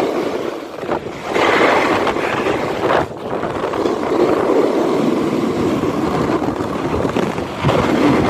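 Steady rushing noise of skiing downhill at speed: skis scraping over hard, icy snow, mixed with wind buffeting the microphone. It dips briefly about one second and three seconds in.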